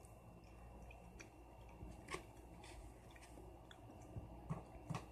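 A person chewing a mouthful of breaded fried chicken close to the microphone: quiet chewing with scattered soft wet clicks, the two loudest near the end.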